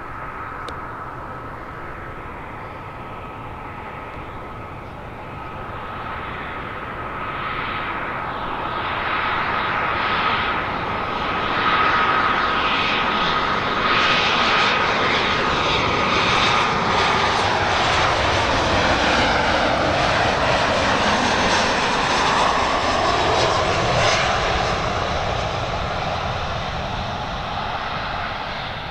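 Boeing 737-700's CFM56 jet engines on a landing pass, with a steady whine that fades out about 17 seconds in. The sound grows loud as the airliner nears, holds, and its pitch falls as it goes by, then eases toward the end.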